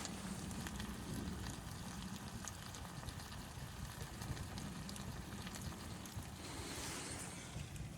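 Blizzard wind blowing steadily with a low rumble, swelling into hissing gusts at the start and again about six and a half seconds in, with small scattered ticks throughout.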